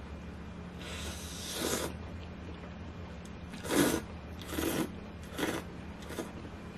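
Thin noodles in broth being slurped in about five separate sucks: a longer slurp about a second in, the loudest one a little before the middle, then three shorter ones.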